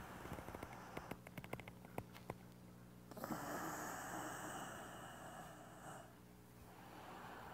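A person breathing audibly during slow qigong movement: a long breath out through the mouth starts about three seconds in and lasts about three seconds, with a softer breath near the end. Faint clicks come in the first two seconds.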